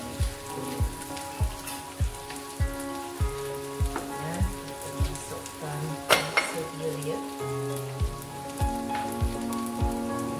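Corn and Chinese sausage sizzling in a wok, under background music with a steady beat of about one and a half thumps a second. A single sharp clink about six seconds in.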